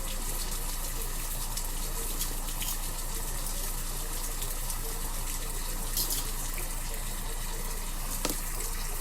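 Bathroom tap running steadily into a sink, with a couple of brief clicks about six and eight seconds in.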